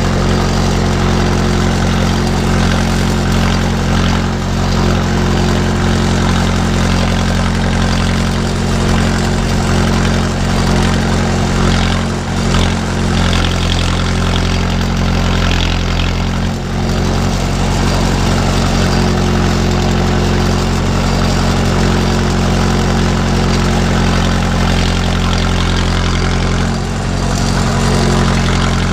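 A 45 hp utility tractor's engine running at a steady speed as the tractor drives, heard from the operator's seat close to the upright exhaust. The sound dips briefly a few times.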